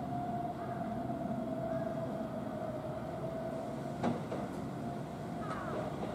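Keihan 10000 series electric train pulling slowly into the station, braking, with a steady whine that slowly drops in pitch over the running rumble. A sharp wheel clack over the points comes about four seconds in, and lighter clacks follow.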